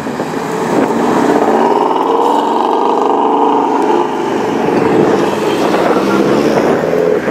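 A car engine running loudly close by, its exhaust note building about a second in and swelling and easing over the next few seconds.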